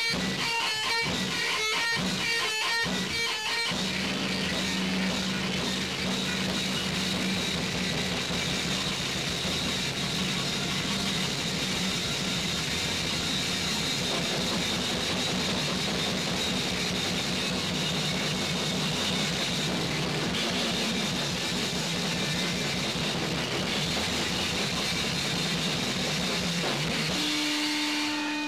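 Noise-rock music. Choppy guitar strumming at about two strokes a second for the first few seconds gives way to a dense, steady wall of guitar noise with held drones, which shifts near the end.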